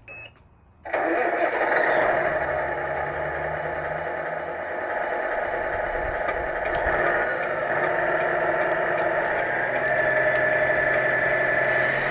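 Engine sound from an RC construction rig, starting abruptly about a second in and then running steadily.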